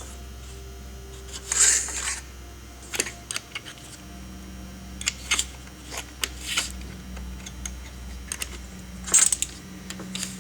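Small steel tool parts clinking and scraping as a bushing-flaring tool and a 6mm nut are fitted together by hand on a chainsaw starter housing, with irregular clicks and a couple of longer metallic scrapes, over a faint steady hum.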